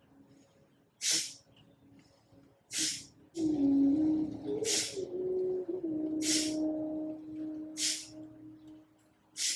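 Kapalabhati breathing: short, forceful exhalations through the nose, each a sharp hiss, coming about every second and a half. From about three seconds in, a louder steady hum at one held pitch sounds under them.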